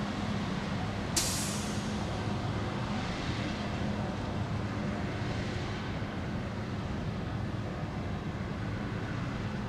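Heavy diesel vehicle running with a steady low hum, and one sharp air-brake hiss about a second in that fades away quickly.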